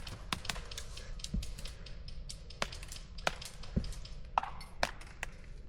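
Sharp, irregular cracks of airsoft guns firing, about a dozen single shots or BB impacts spread unevenly across a few seconds.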